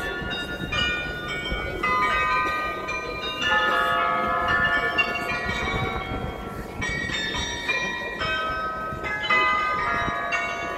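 The bells of the Glockenspiel in the Neues Rathaus tower playing a tune. Several bells are struck together every second or so, and each note rings on and overlaps the next.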